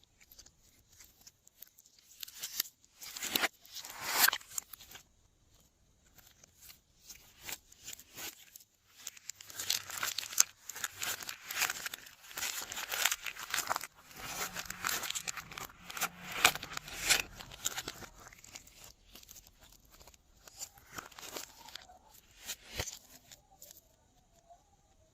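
Glossy slime being kneaded and stretched by hand, giving dense runs of sticky clicks and crackles in bursts. It goes quieter for a few seconds early on and stops shortly before the end.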